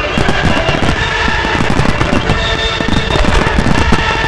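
Dense, continuous barrage of fireworks shells bursting, many booms overlapping with no gaps, with music playing alongside.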